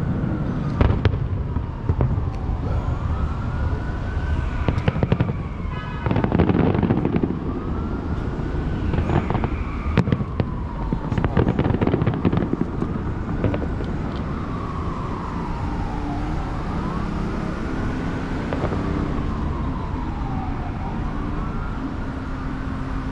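Fireworks going off in the distance: booms and crackles come thickly over the first twelve seconds or so, then thin out. Throughout, a siren wails up and down over and over, one rise and fall every two to three seconds.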